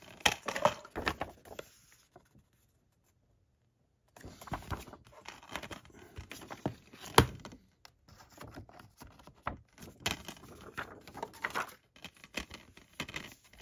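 Hands handling a plastic Blu-ray keep case and its paper artwork sleeve: rustling, sliding and scattered plastic clicks and knocks. There is a short pause about two seconds in, and one sharp click about halfway through is the loudest sound.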